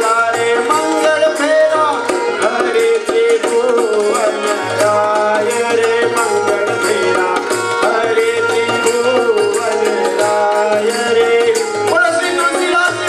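Indian music with a steady hand-drum beat under a winding melody.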